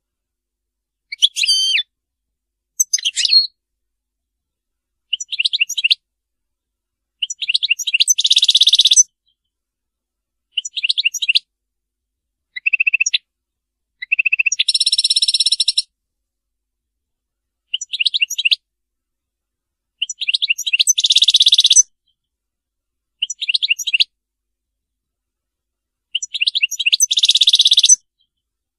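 European goldfinch song: short bursts of high twittering notes every two to three seconds, four of them running into a longer buzzy trill, with silent gaps between phrases.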